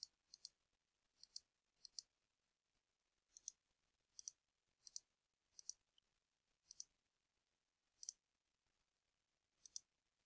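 Faint computer mouse clicks: about a dozen sharp clicks at irregular intervals, most heard as a quick double tick of the button going down and coming back up.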